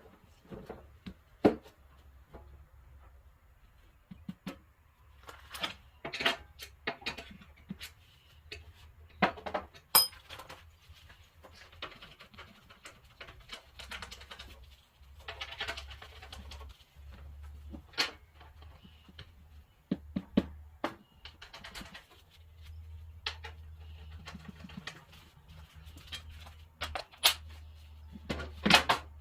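Scattered, irregular clicks, knocks and short rattles of hand tools and metal parts being handled while tractor panels and the seat are bolted back on, over a low steady hum.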